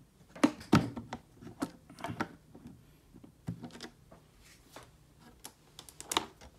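Hard plastic clicking and knocking as the clear lid of a Milwaukee Packout organizer is handled, unlatched and swung open: a string of separate sharp clicks, loudest about half a second in and again near the end.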